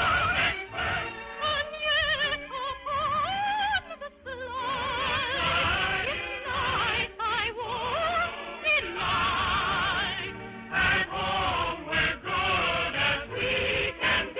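Operetta soprano singing with a wide operatic vibrato over musical accompaniment, pausing briefly about four seconds in.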